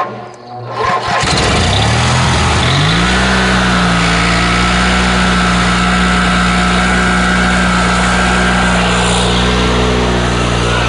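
Coleman Powermate Vantage 8000 generator's engine starting after sitting almost a year: it catches about a second in, its pitch rises as it comes up to speed, then it runs at a steady speed from about three seconds in.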